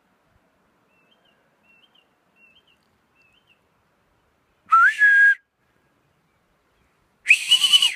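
Two short whistled commands to a working sheepdog. The first, about five seconds in, rises then holds. The second, near the end, holds on a higher pitch, with a breathy hiss behind each.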